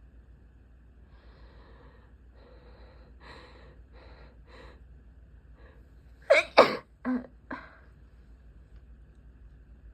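A person's sneeze: a run of breathy, catching in-breaths that come quicker and shorter for about four seconds, then one loud sneeze bursts out, followed by two shorter, quieter bursts.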